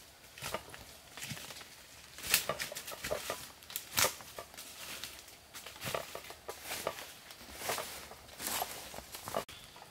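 Footsteps crunching and rustling through dry leaf litter, twigs and undergrowth, an irregular series of steps with a few sharper snaps.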